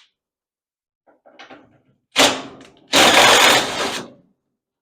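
Workshop tool noise: a sudden loud knock about two seconds in, then about a second of loud, harsh mechanical noise.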